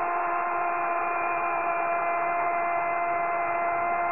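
Sports commentator's goal cry, one long shouted note held steady over the noise of a stadium crowd.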